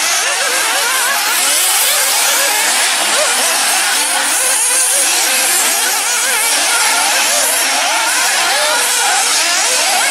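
A pack of 1/8-scale nitro off-road RC buggies racing, their small two-stroke glow engines revving up and down over one another in a constant buzzing whine.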